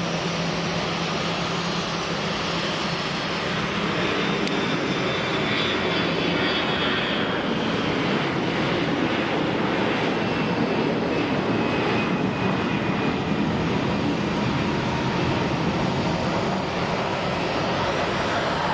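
Jet airliner engines running at a busy runway: a loud, steady rush of engine noise with a faint high whine that slowly falls in pitch midway through.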